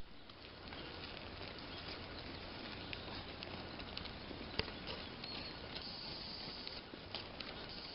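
Spring forest ambience: a steady hiss with scattered light pattering and small ticks, and a high thin tone held for about a second and a half, a little past the middle.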